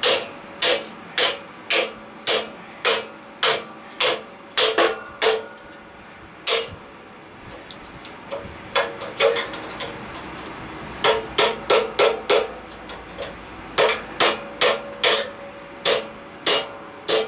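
Hammer blows on the metal end plate of an air-conditioner A-frame coil clamped in a vise: sharp metallic strikes about two a second, each with a short ring. The blows let up for a couple of seconds a little past the middle, then start again.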